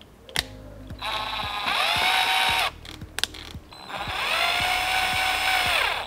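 Pink Hippoo cordless drill driving screws into the latch and deadbolt faceplates on the door edge, in two runs. Each run climbs in pitch as the motor spins up, holds a steady whine for a second or two, then stops, with a short click before each one.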